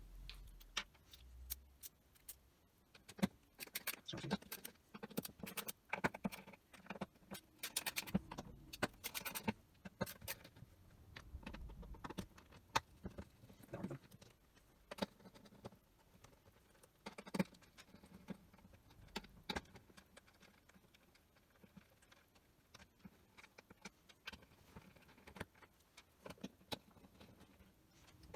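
Five-lobe security Torx driver (TS20) backing screws out of a Pint battery box: irregular small clicks, ticks and metallic clinks of the bit, screws and tool handling, busiest in the first ten seconds and sparser afterwards.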